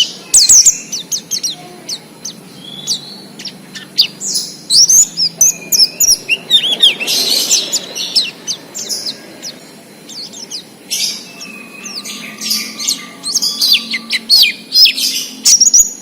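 White-eye (pleci) singing in bursts of quick, high, falling chirps: the long warbling 'ngalas' song that keepers play to draw untrained pleci into song.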